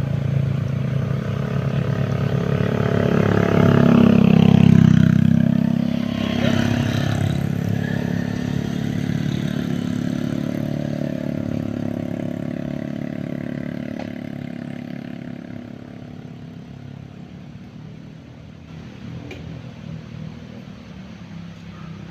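A motor vehicle's engine passing by: it grows loudest about four to five seconds in, drops in pitch as it goes past, then fades slowly away.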